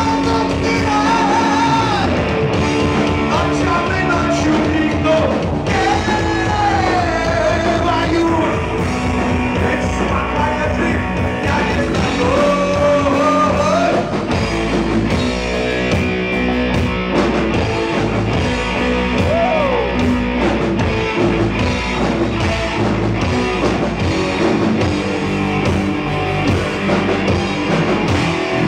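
Live rock band playing at full volume: electric guitar, bass guitar and drum kit, with a man singing lead over a steady drum beat.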